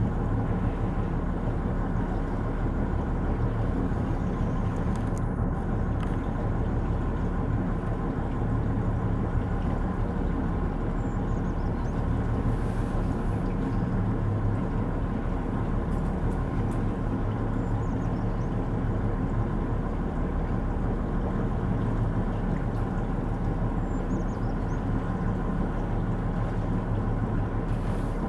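An engine running at a steady, even speed: a low drone with a constant hum.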